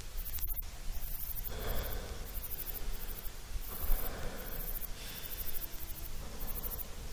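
A person breathing slowly and audibly, about three breaths roughly two seconds apart, over a steady low rumble.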